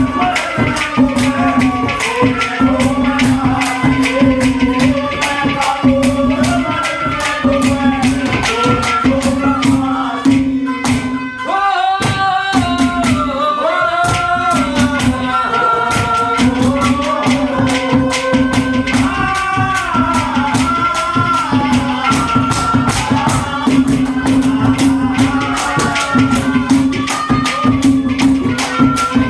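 Haryanvi ragni folk music: fast jingling percussion over a steady low drone, with a melody winding above it, briefly thinning out about eleven seconds in.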